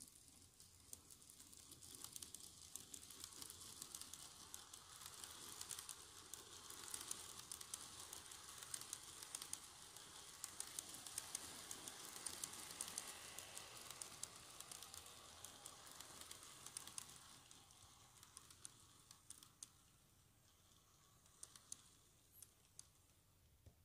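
Model train running along its track past the microphone: a faint rattle of wheels clicking over the rail joints with running noise. It builds up over a few seconds, is loudest in the middle, then fades away, with a few separate clicks near the end.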